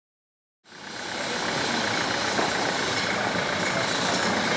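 Historic Carris electric tram running along the street, its motor and wheels on the rails making a steady noise, mixed with street ambience. The sound fades in about half a second in.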